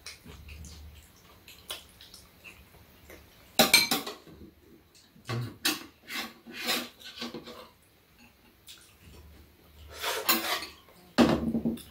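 Metal spoons and chopsticks clinking and scraping against bowls while eating, in scattered short strokes, with louder flurries about four seconds in and near the end.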